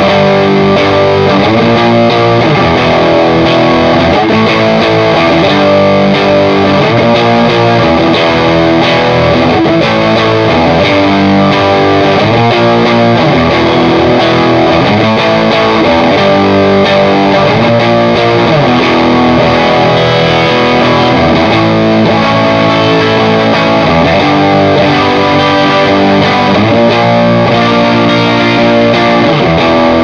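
Electric guitar played through a Tech 21 Double Drive overdrive pedal, switched on, giving an overdriven tone meant to copy a cranked Class A EL84 amp such as a Vox AC30. It plays a continuous riff, changing notes every second or so.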